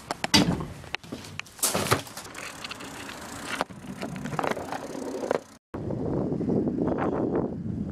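Knocks and clicks of a Mondia road bicycle being handled and wheeled out over gravel. After a sudden cut about five and a half seconds in, it gives way to the steady rush of wind on the microphone and tyres rolling on asphalt as the bicycle is ridden.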